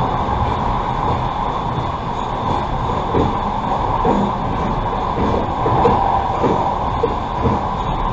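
Passenger train running along the track, heard from inside the carriage: a steady rumble of wheels on rails, with a faint knock roughly once a second.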